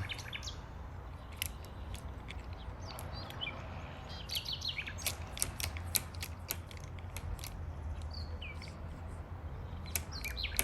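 Small birds chirping in quick, short notes, thickest in the middle stretch, over a steady low rumble.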